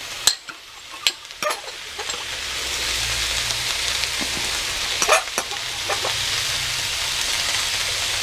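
Zucchini, squash and bell peppers sizzling in a hot pan, the sizzle swelling about two seconds in and then holding steady, with a few sharp clicks and taps of utensils against the pan.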